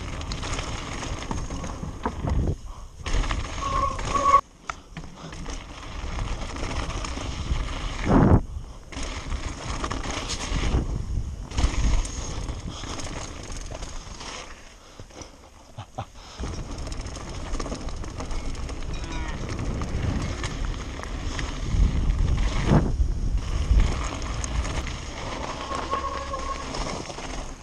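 Downhill mountain bike running fast over a gravel and dirt trail, heard from a camera on the rider: a steady rumble of tyres and wind on the microphone with rattles and knocks, broken by several sudden cuts.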